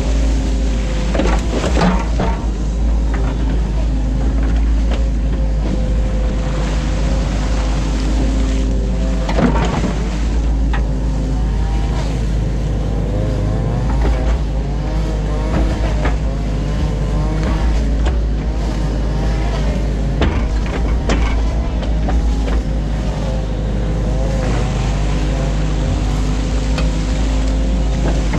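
New Holland Kobelco E50.2 mini excavator's diesel engine and hydraulics working steadily, the pitch rising and falling as the boom and bucket move, with a few knocks as the bucket works the mud and turf.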